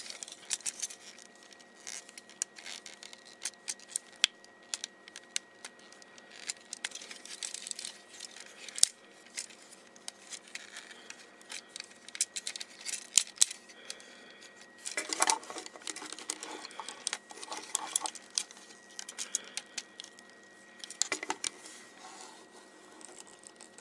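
A plastic Transformers action figure being posed by hand: many irregular clicks and clacks from its plastic joints and parts, with a few short bursts of handling rustle.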